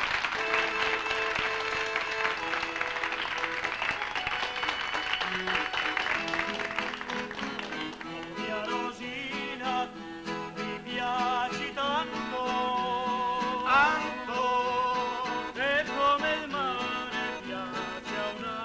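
Live music on acoustic guitar and accordion. A dense run of held chords opens it, and after about eight seconds a singing voice with wavering pitch comes in over the guitar.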